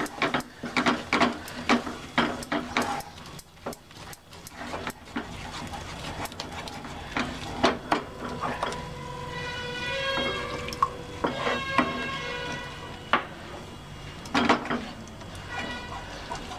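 Wooden spatula scraping and knocking irregularly against a nonstick kadai as a thick white sauce of butter, flour and milk is stirred continuously to keep lumps from forming. A steady whistle-like tone sounds in the background for a few seconds midway.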